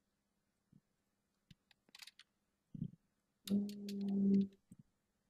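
A few faint computer keyboard clicks, then a person holds one steady hum for about a second, growing louder, a little past halfway.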